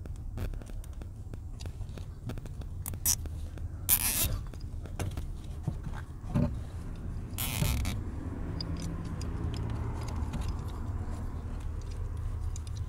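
Plastic zip ties being pulled tight around a wiring bundle: two short ratcheting zips, about four seconds in and again a few seconds later, among small clicks and rustles of handled wiring over a steady low hum.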